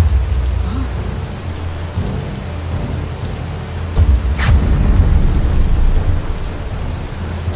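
Animated-cartoon sound effect of heavy rain with a deep rumble that starts suddenly. The rumble swells louder about four seconds in, with a single sharp crack.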